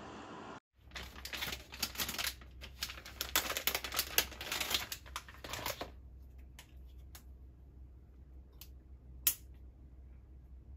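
Plastic food packaging crinkling and rustling for about five seconds as a small concentrated hot-pot soup pouch is taken out of its bag. This is followed by a few separate light plastic clicks as the pouch is handled, with one sharper click near the end, over a steady low hum.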